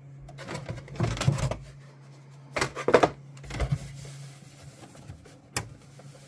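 Objects being handled and moved about, with three bursts of rustling and clatter in the first four seconds and one sharp click near the end, over a steady low machine hum.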